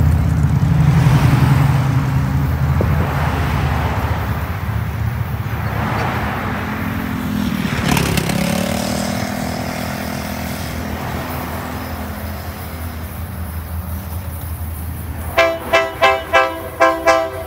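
Road traffic passing close by, cars swelling and fading, one with a falling pitch as it goes past about halfway through. Near the end a Florida East Coast Railway diesel locomotive's air horn sounds about six quick, loud, short blasts.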